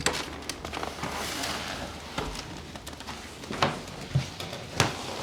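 A person shifting onto her side on a chiropractic treatment table: rustling and shuffling, with a few sharp clicks and taps, mostly in the last couple of seconds.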